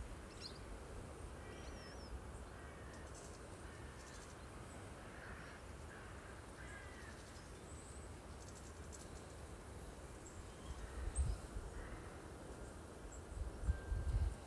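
Quiet woodland air with faint, scattered calls of distant birds. A few low rumbling bumps on the microphone come near the end.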